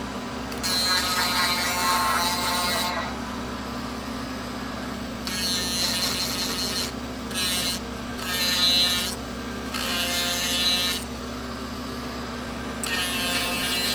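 Dremel rotary tool running steadily, its small grinding-stone bit grinding a groove into a block of birch in several short passes, the grinding noise rising and falling as the stone meets and leaves the wood.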